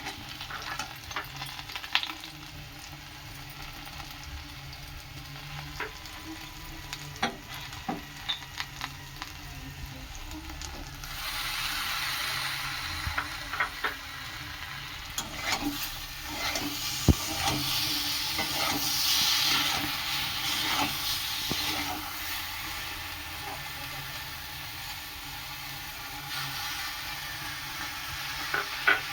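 Curry frying and sizzling in a pan while being stirred, a spoon scraping and knocking against the pan now and then. The sizzle grows much louder about a third of the way in and eases back about two-thirds of the way through.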